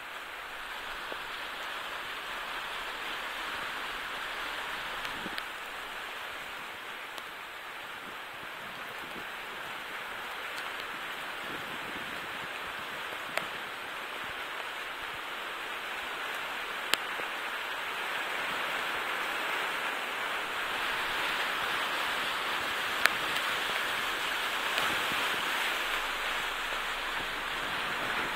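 Flood water rushing and splashing against the side of a 4x4 as it drives through a flooded street: a steady watery hiss that grows louder over the second half. A few sharp ticks stand out.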